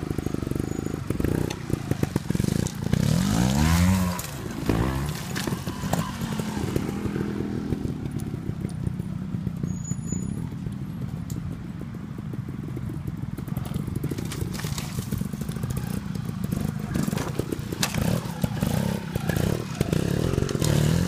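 Trials motorcycle engines revving in short bursts that rise in pitch, as the bikes are driven up a stepped rock ledge, loudest about four seconds in and again near the end.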